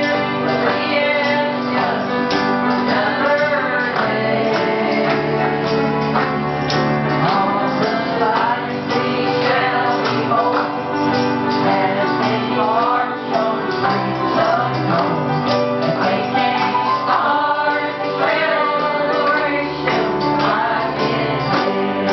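A woman singing a gospel song into a microphone over instrumental accompaniment with sustained bass notes and a regular beat.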